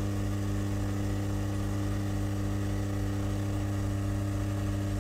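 Hot air rework gun running steadily, a constant low hum with a faint whir, heating heat-shrink tubing.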